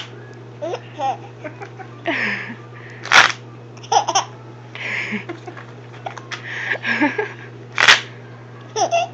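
A baby laughing in short bursts while having the hiccups, the giggles broken up by sharp catches. The loudest are two sudden bursts, one about three seconds in and one near eight seconds.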